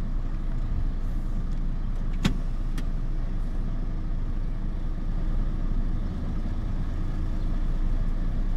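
Mercedes-Benz mixer truck's diesel engine running steadily, heard from inside the cab as the truck sets off on a road test for a reported lack of pick-up. A sharp click comes about two seconds in, and a fainter one half a second later.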